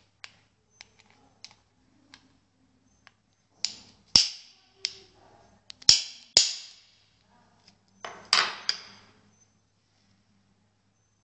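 Hammer striking a small brass padlock: a few light taps, then about seven sharp metallic knocks from about four seconds in, some in quick pairs, each with a short ringing tail.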